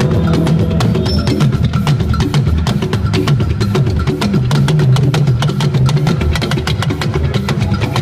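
Hourglass talking drums beaten with curved sticks in a fast, steady rhythm, their low tones bending up and down as the players squeeze the drums under their arms.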